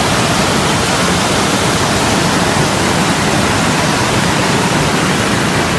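Loud, steady rushing of the Bishnumati River in spate, its muddy floodwater churning through rapids after days of continuous rain.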